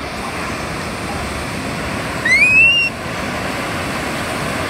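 Artificial surf from a wave-pool wave breaking and washing through the water, a steady rushing of foam. A short, high, rising shriek cuts in about two seconds in.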